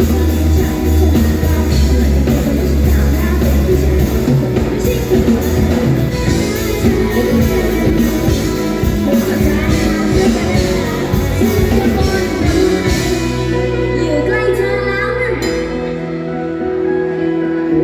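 Live pop-rock band playing with drums and guitar, and a female singer's voice in places; the heavy low end drops out near the end, leaving a lighter accompaniment.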